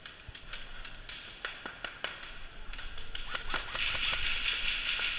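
Airsoft guns firing during a game: a dozen or so scattered sharp cracks, with a steady hiss joining in about four seconds in.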